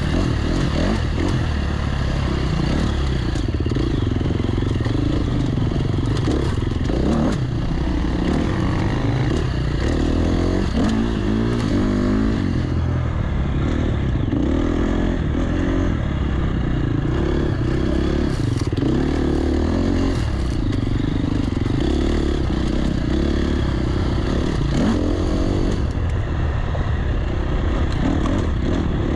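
Enduro dirt bike engine running hard on a trail ride, its pitch rising and falling again and again as the throttle opens and closes.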